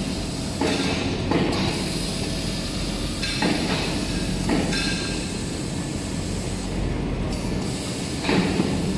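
Automatic band saw cutting machine for maxi toilet paper rolls running: a steady mechanical hum with surges of louder grinding noise every second or few, irregularly spaced.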